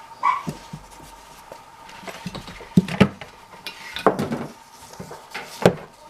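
Small hard tools and parts handled on a workbench: a scattered series of clicks and knocks as things are picked up and set down, with a short squeak near the start.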